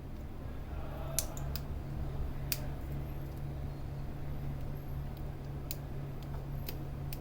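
Small, sharp clicks of hand tools and parts being handled while a vape pod is worked on, about six scattered ones, over a steady low hum.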